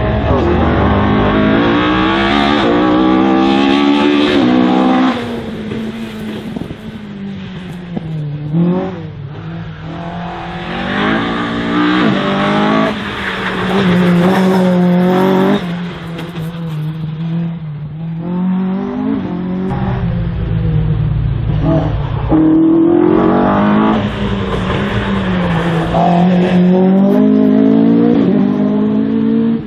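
Race car engine revving hard on a slalom run: the pitch climbs through the gears, falls away as the driver lifts off and brakes, then climbs again, over and over. It is quieter for a stretch in the middle and loud again near the end.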